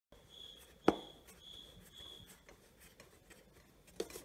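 Plastic air cleaner cover being fitted onto a Predator 212 generator engine: quiet handling rubs, one sharp click about a second in, and a smaller click near the end.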